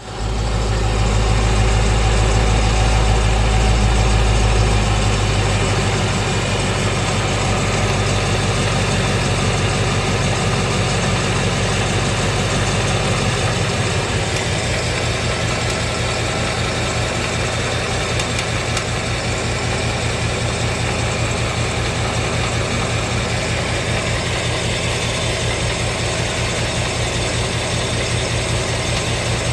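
2017 Ford Mustang GT's 5.0 V8 idling with a fast, even ticking running through it, the kind of tick known as a "BBQ" or "typewriter" tick, which appeared after the engine's first oil change. The deep engine note drops a step about five seconds in and again near halfway as the idle settles.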